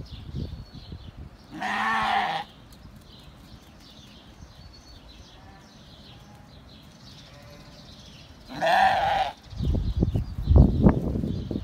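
A lamb bleating twice, each bleat under a second long and about seven seconds apart. A low rumbling noise takes over in the last two seconds.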